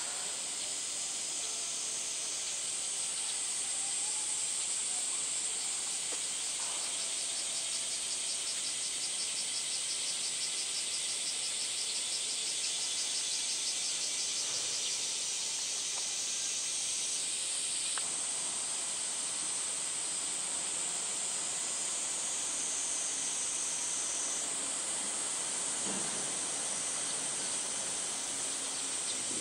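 Chorus of summer cicadas: a steady high-pitched hiss, with a pulsing trill standing out over it for several seconds in the middle.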